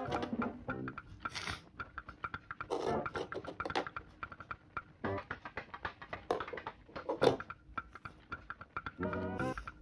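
Background music: a jazzy tune with brass notes over a busy percussive beat.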